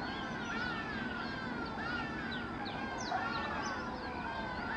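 A chorus of many birds calling together: repeated sliding whistled notes with quick chirps over them, overlapping throughout.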